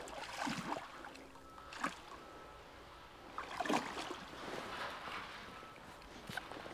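River water running, with a few short, irregular handling or splashing noises close to the microphone.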